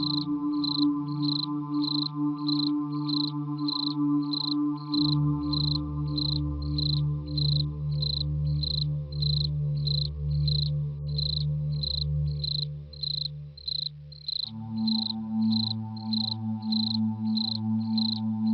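Eerie horror background track: a cricket chirping in a steady, even rhythm, two or three chirps a second, over a low sustained synth drone. The drone's chord shifts about five seconds in and again near fifteen seconds, dipping quieter just before the second change.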